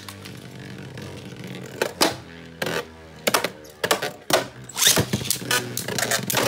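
Beyblade Burst tops, Astral Spriggan and Savior Valkyrie, spinning in a clear plastic stadium: a steady whir, broken by repeated sharp clacks as the tops strike each other and the stadium wall.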